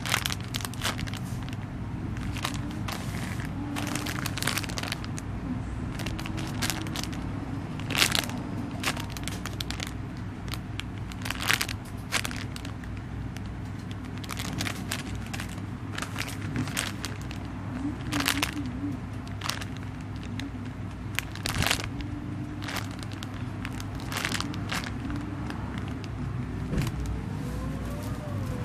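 Plastic packaging crinkling and crackling as a package is handled and opened, in sharp, irregular crackles over a steady low background hum.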